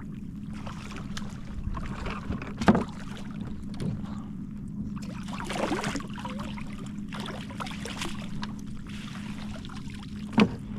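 Splashing and handling noises aboard a kayak over a steady low hum, with two sharp knocks, about three seconds in and again near the end.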